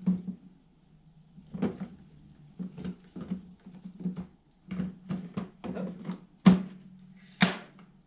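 Plastic clicks and knocks as 40V batteries are slotted into a Greenworks electric lawn mower's battery bay and the green plastic lid is handled, ending with two sharp snaps near the end as the lid is shut.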